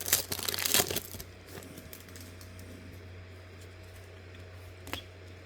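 Foil trading-card pack wrapper crinkling for about the first second, then quieter card handling with one short click near the end, over a faint steady hum.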